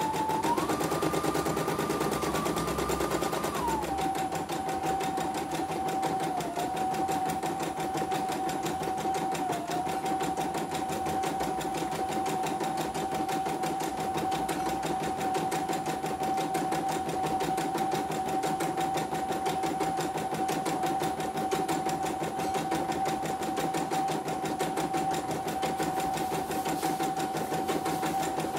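CNY computerized embroidery machine stitching a design, a test run after repair of a system error. Its motor whines over rapid needle-stroke ticking, running at a higher pitch for the first few seconds, then settling lower with a couple of brief dips.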